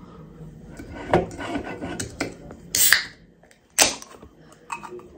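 Aluminium can of carbonated lemon-lime soda knocked and handled on a table, then its pull tab opened: two sharp cracks with a short fizz of escaping gas, about halfway through and again a second later.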